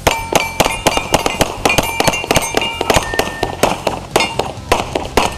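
Rapid pistol fire, a quick string of shots about three to four a second, with steel plate targets ringing with a clang after hits.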